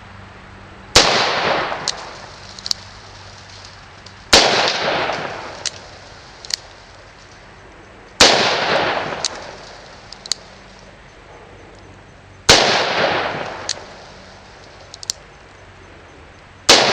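Taurus Model 617T titanium .357 Magnum revolver fired five times, one shot about every four seconds. Each sharp crack is followed by an echo that rolls off over about a second, with a few faint sharp clicks in between.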